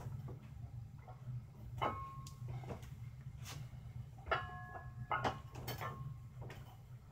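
Metal clinks and clanks from a plate-loaded dumbbell as it is rowed up and set back down, several sharp knocks, some with a short metallic ring, over a steady low hum.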